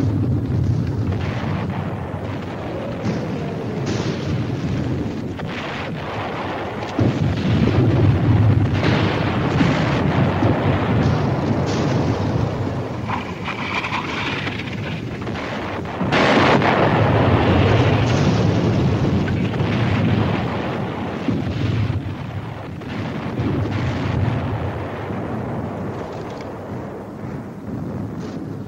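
Battle sound effects of artillery shells bursting one after another, with rumbling booms and sharp cracks. The loudest blasts come about seven and sixteen seconds in.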